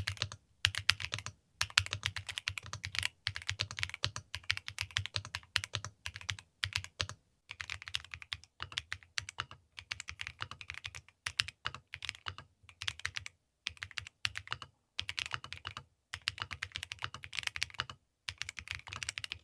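Typing on an M71 custom mechanical keyboard: fast runs of keystrokes with a low thock under the clicks, broken by short pauses every second or two.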